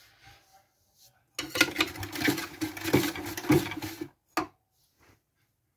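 Toy washing machine running: a small motor hums under a dense rattling from the drum. It starts suddenly about a second and a half in and stops abruptly about three seconds later, and a single click follows.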